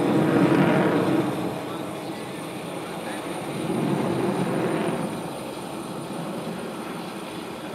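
Jet noise from a Sukhoi Su-30MKM's twin AL-31FP afterburning turbofans as the fighter manoeuvres. It swells louder about half a second in and again around four seconds, easing off in between.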